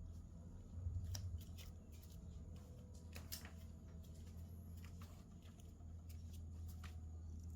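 Faint, irregular light clicks and rustling over a low steady hum.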